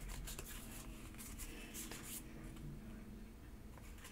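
Faint rustling and sliding of a handheld stack of baseball cards being flipped through, with a few light ticks of card edges over the first two seconds, then quieter.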